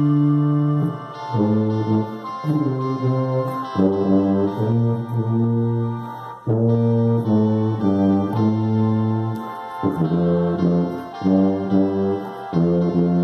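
Tuba playing a hymn melody, a run of held notes in phrases with brief breaths between them.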